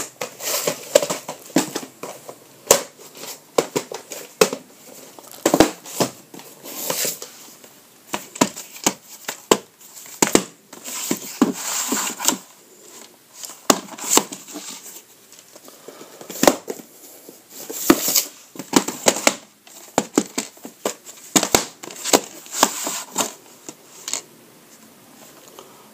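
VHS cassettes and their sleeves being handled: irregular plastic clicks, knocks and rustling as tapes are picked up, turned over and set down on a wooden floor.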